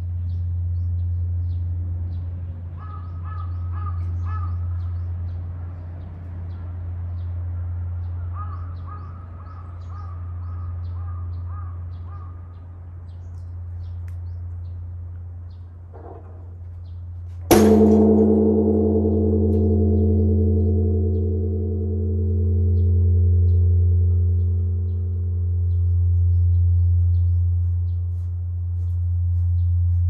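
Large Japanese temple bell (bonsho) struck once by a swinging wooden log, about 17 seconds in: a sharp boom followed by a long ringing hum that swells and fades in slow pulses. Before the strike the deep hum of the previous stroke is still dying away while birds call.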